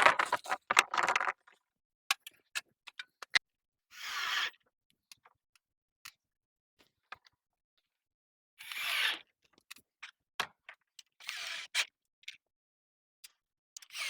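Corrugated PVC roofing panels being handled on a chicken coop frame: several short scrapes of about half a second each, with scattered clicks and knocks in between and a dense clatter of knocks in the first second or so.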